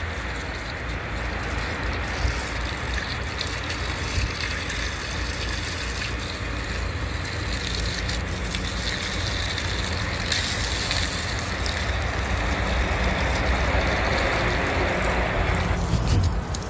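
Garden hose nozzle on its mist setting, spraying water in a steady hiss over a low rumble.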